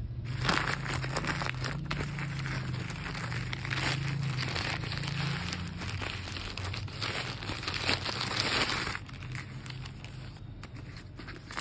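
Plastic courier mailer bag crinkling and tearing as hands pull it open and draw out a paper-wrapped package. The crackling is dense and irregular, then eases off about nine seconds in.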